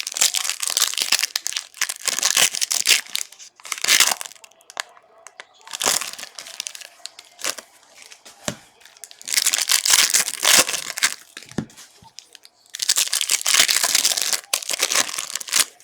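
Plastic wrapping on a box of trading card packs being crinkled and torn open, in several spells of rustling with short pauses between them.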